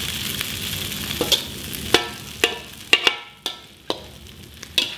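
Kwetiau noodles and vegetables sizzling in a wok while a perforated metal spatula tosses them, scraping and clanking against the wok about seven times with a brief metallic ring. The sizzle dies down about three seconds in.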